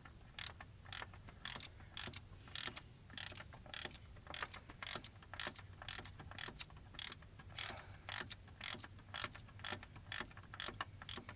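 Hand ratchet clicking in short, irregular runs of several clicks a second while working a Torx T30 bolt loose.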